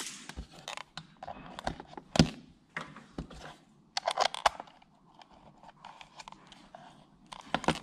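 Scattered clicks and clatter of a BNC-to-banana-plug adapter and test lead being handled and fitted to a small handheld digital oscilloscope, with a cluster of clicks about four seconds in.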